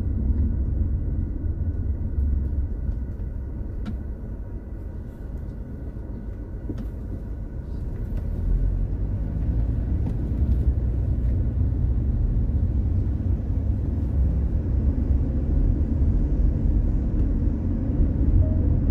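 Low, steady road and engine rumble of a car being driven, quieter for a few seconds around the middle and louder again from about eight seconds in.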